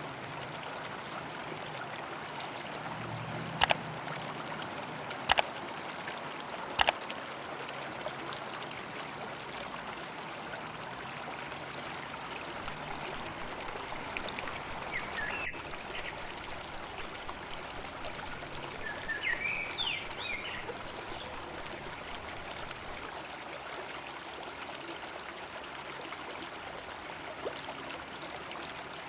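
River water flowing steadily. Three sharp knocks about a second and a half apart come a few seconds in, and there are a few brief chirps around the middle.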